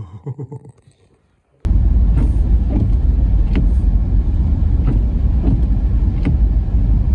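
Car interior road noise while driving: a loud steady low rumble with faint occasional ticks, starting abruptly about a second and a half in after a moment of near quiet.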